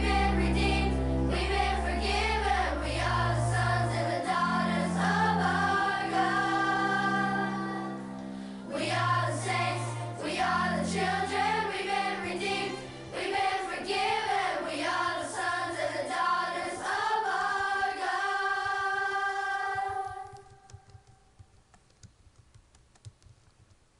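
Christian worship song with group and female voices singing over a stepping bass line; it fades out about 20 seconds in, leaving only faint scattered clicks.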